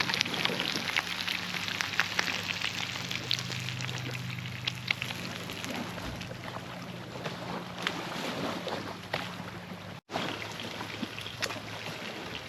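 Egg-and-breadcrumb-coated hogfish fillet frying in hot coconut oil, a steady sizzle with many small crackles and pops, over a low steady hum.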